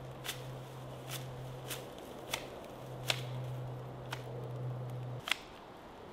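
Dry water reed crackling in a series of sharp snaps, roughly one every two-thirds of a second, as reed bundles are worked along the roof ridge. A low steady hum runs underneath and stops about five seconds in.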